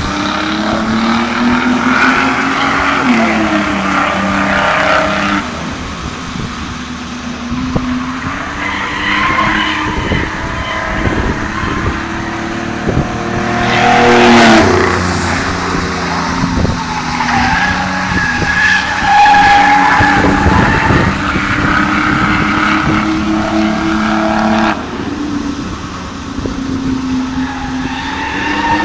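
Race car lapping an oval track in practice, its engine note rising and falling through the laps. It gets loud twice as the car passes close by, the loudest about halfway through.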